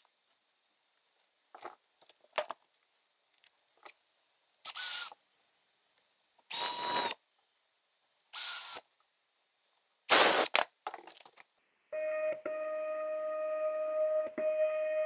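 A power driver runs in four short bursts, setting screws into the wooden lid of the control box. About twelve seconds in, the stepper motor of a homemade router lift starts and runs with a steady whine, turning the lead screw that raises or lowers the trim router.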